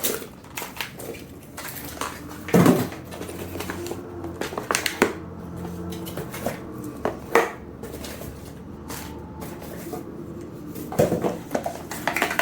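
Small hard items, fidget toys and their packaging, being handled and set down during an unboxing: scattered clinks and knocks, with a few sharper knocks spaced a couple of seconds apart and a cluster near the end.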